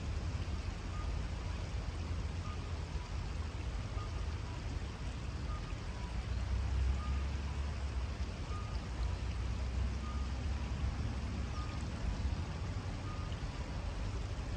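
Steady low rumble of road traffic over the hiss of the shallow river flowing. A faint electronic beep repeats through it in two alternating pitches, about one every second and a half.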